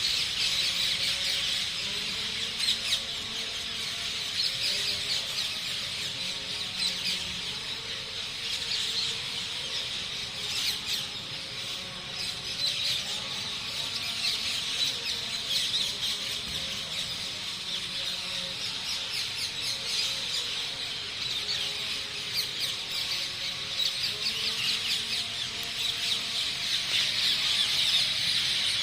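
Many small birds chirping and chattering at once, a dense, continuous mass of rapid overlapping calls.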